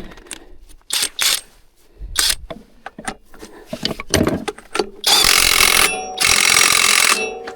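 Clinks and knocks of tools and metal parts, then a handheld power tool runs twice for about a second each, driving bolts during engine reassembly.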